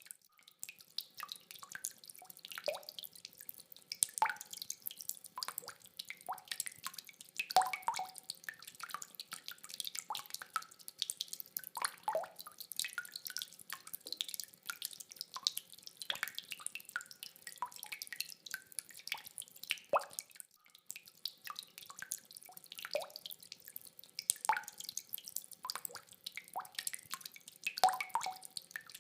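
Rain dripping: many irregular drops tapping and plinking, with a few louder single drops standing out now and then.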